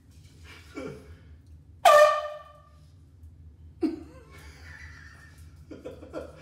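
A handheld air horn sounds one short, loud blast about two seconds in, starting abruptly on a steady pitch and then dying away.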